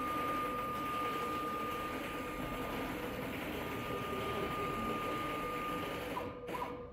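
CNC router's stepper motors whining steadily as the gantry and router head are jogged across the table, over the steady rush of the running dust extractor. The sound drops out abruptly near the end.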